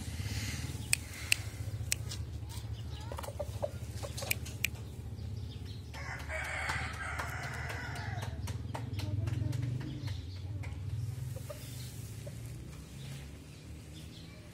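A rooster crowing once, a call of about two seconds beginning about six seconds in, over a steady low rumble, with a few sharp clicks in the first five seconds.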